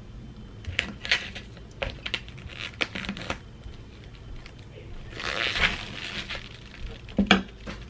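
Plastic cling wrap on a foam meat tray being slit open with a chef's knife: scattered crinkles and sharp clicks of the film and tray, then a longer rustle as the wrap is pulled back about five seconds in, and a couple of sharp clicks near the end.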